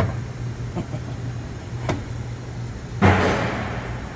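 Light metallic knocks, then a louder clunk with a scrape about three seconds in, as the aluminium TorqStorm supercharger head unit is worked by hand against its mounting bracket. A steady low hum runs underneath.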